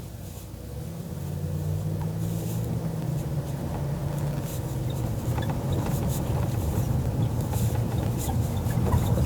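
Car engine and road noise heard from inside the cabin while driving, a low hum that comes in about a second in and grows steadily louder.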